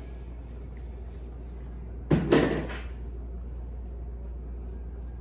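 Two sharp knocks in quick succession about two seconds in, over a steady low hum.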